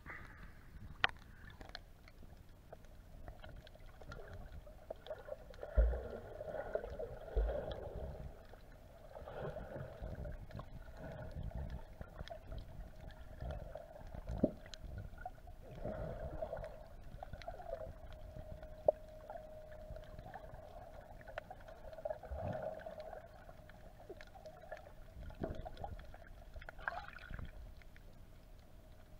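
Muffled underwater water sound picked up by a submerged camera: gurgling and sloshing with a steady hum under it and a few dull thumps.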